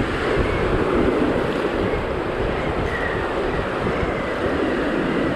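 Ocean surf breaking over shoreline rocks, mixed with wind buffeting the microphone: a steady rushing noise with a low rumble.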